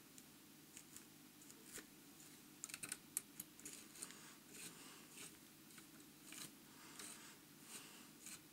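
Faint rustling and light scattered ticks of hands handling and smoothing the long fibres of a large pike fly in a vise, over a low steady room hum.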